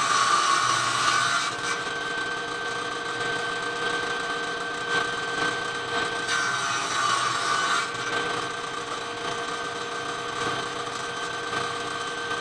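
Circular saw running steadily, its blade cutting through wood, with swells of louder cutting noise near the start, about seven seconds in, and near the end.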